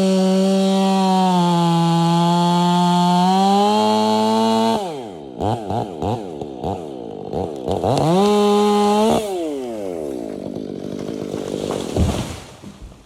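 Chainsaw running at high revs, then revved up and down several times in quick succession, held high again briefly and let drop. A single heavy thump near the end.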